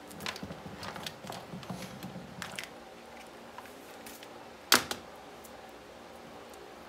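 Wire leads and small connectors handled by hand: light rustling and clicking for the first two and a half seconds, then one sharp click with a softer click right after it, a little before five seconds in.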